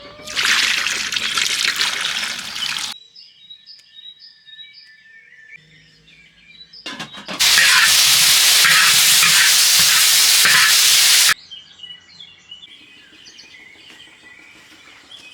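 Loud sizzling of food frying, in two stretches that start and stop abruptly: about the first three seconds, and again from about seven to eleven seconds in. Birds chirp faintly in between and afterwards.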